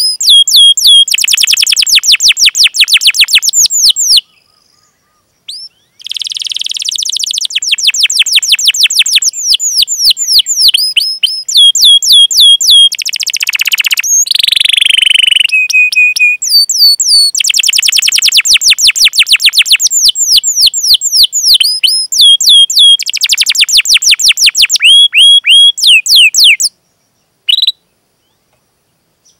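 Domestic canary singing a fast, dense song: long rapid trills of repeated downward-sweeping high notes mixed with chirps. There is a short pause about four seconds in, and near the end the song breaks off into a couple of single notes.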